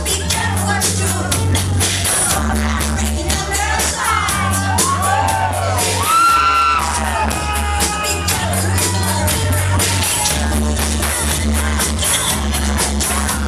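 Loud dance music played by a DJ over loudspeakers, with a heavy steady beat and singing. A few gliding vocal cries stand out around the middle.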